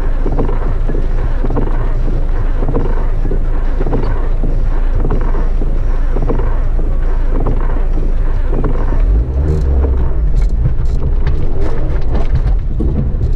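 Small 4x4 driving slowly over a rough, rutted dirt track, heard from inside: steady engine and tyre rumble. From about nine seconds in the low rumble gets heavier and sharp knocks and rattles come as the vehicle jolts over the ruts.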